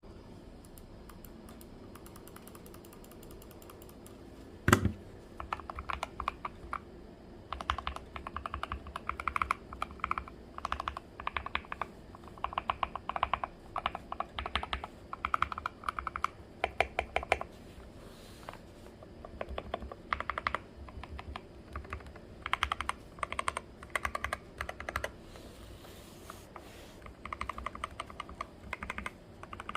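Akko 3061 mechanical keyboard being typed on in bursts of rapid keystrokes with short pauses between them. The first seconds are quiet, broken about five seconds in by a single sharp knock, the loudest sound.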